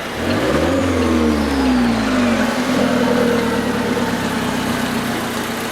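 Alfa Romeo 4C's turbocharged four-cylinder engine starting up: it catches, flares quickly up in revs, then sinks back over a couple of seconds and settles into a steady idle.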